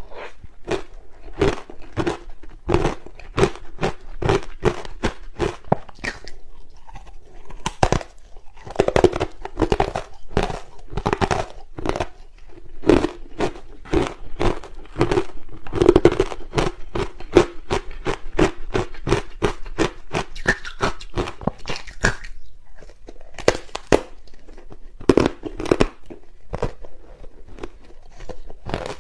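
Ice coated in matcha powder being bitten and chewed, a rapid series of sharp crunches, about two to three a second, with a couple of short pauses.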